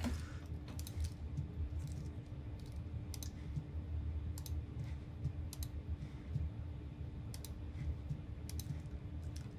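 Faint, irregular clicks of computer input devices, about a dozen, over a low steady hum.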